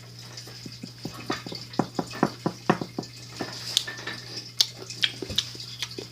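Aquarium water dripping and trickling in irregular plinks, over the steady low hum of a running motor such as a filter or air pump.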